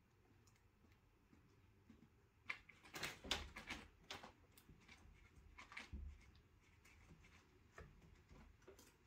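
Faint tapping and rustling from a cat's paws as it steps across the top of an upright piano among the music books, in a cluster of soft clicks and thumps a couple of seconds in and another shortly after. No piano notes are played.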